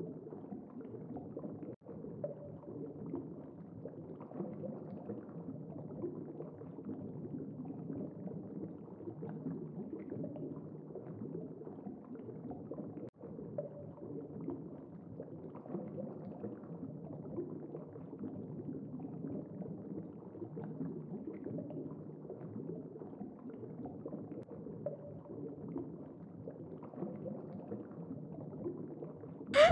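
Underwater ambience: a steady, fairly quiet wash of water sound.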